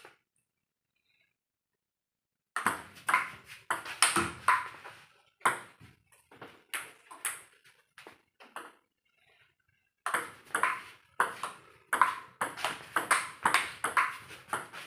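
Table tennis ball clicking off paddles and the table in fast rallies, several sharp strikes a second. It starts after about two and a half seconds of dead silence and breaks off for about a second and a half midway before the rally resumes.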